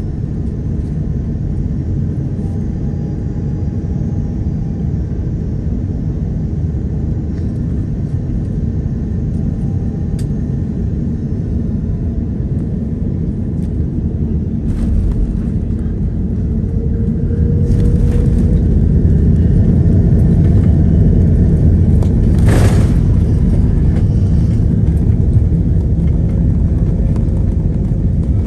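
Cabin noise inside an Airbus A330-300 on final approach and landing: a steady low rumble of engines and airflow. A little past halfway it grows louder as the aircraft touches down and rolls out on the runway, with a sharp knock about three-quarters through.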